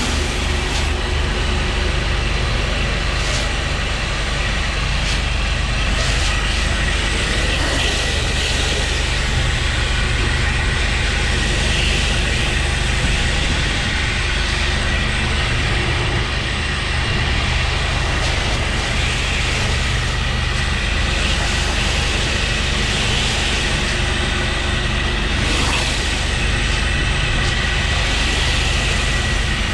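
Engine-driven 10.5 GPM pressure washer running steadily, with a constant engine drone under the hiss of high-pressure water spray.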